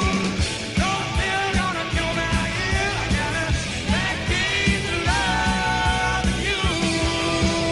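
Background rock song with singing over a steady drum beat.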